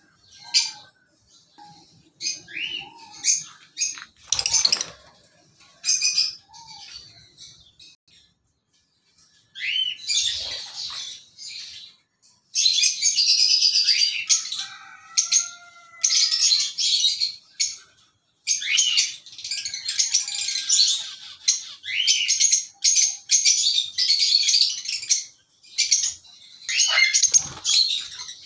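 Lovebirds chattering with shrill, squeaky chirps, scattered at first and nearly continuous from about halfway through.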